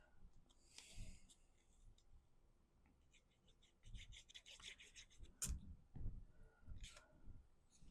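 Faint rustling and light taps of paper pieces being handled, with a sharper click about five and a half seconds in.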